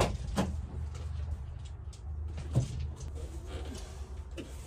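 Knocks and clunks inside an empty metal cargo van as gear is handled on its floor. A sharp, loud clunk at the start is followed by a few lighter knocks and rustling over a steady low rumble.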